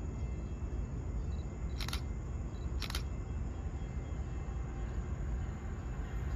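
Two short, sharp clicks about a second apart over a steady low outdoor rumble.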